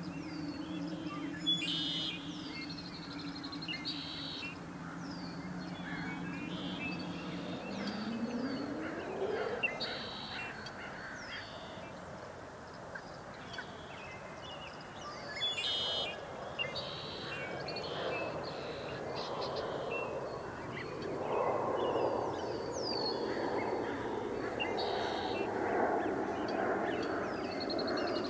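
Wild birds calling at a pond, with many short high falling calls repeated throughout. A low two-toned hum runs under them at first and glides upward in pitch about eight seconds in. From about sixteen seconds a lower, denser layer of sound builds, loudest after about twenty-one seconds.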